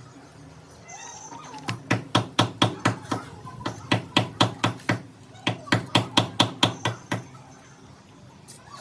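Rapid, regular hammer blows, about four a second, in three runs with short pauses, starting about two seconds in and stopping near the end.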